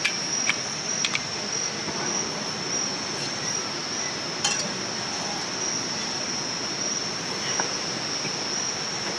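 A steady high trill of night insects, with a few sharp clicks in the first second or so as a butane canister camping stove is lit with a lighter, and the stove's burner hissing under a pot of water.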